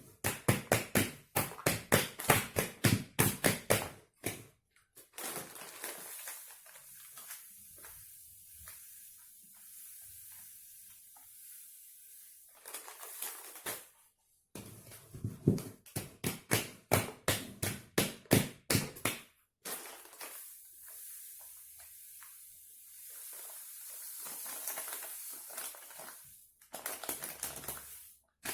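Granulated sugar poured into a glass jar packed with pine cones, a steady hiss as it trickles down between the cones. Twice it gives way to a spell of quick knocks, about four a second, as the jar is jolted to settle the sugar, with a shorter spell of knocks near the end.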